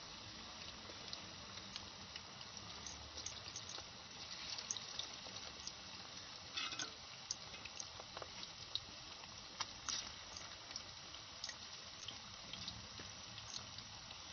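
Battered fish pieces deep-frying in hot oil in an aluminium pot: a steady sizzle with many scattered sharp pops.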